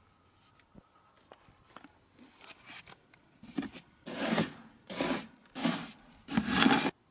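Plastic litter scoop raking through a cat's litter tray: light scratching at first, then four loud scraping strokes in the last three seconds, the last cut off abruptly.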